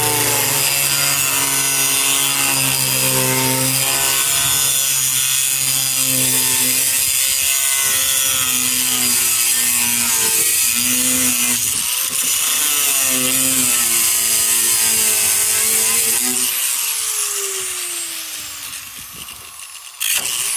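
Angle grinder cutting through metal, its pitch wavering under load for about sixteen seconds, then spinning down with a falling whine after it is released.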